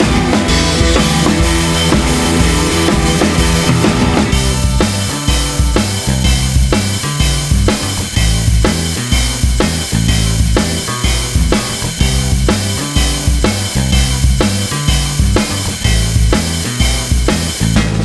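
Background music with a steady drum-kit beat; the drums come in harder about four seconds in, at roughly two beats a second.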